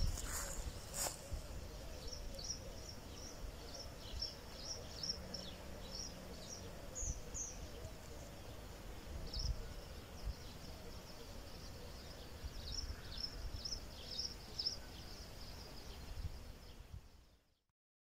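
Outdoor ambience: small birds chirping in short, repeated high calls over a low steady rumble, with a few knocks in the first second. The sound cuts to silence near the end.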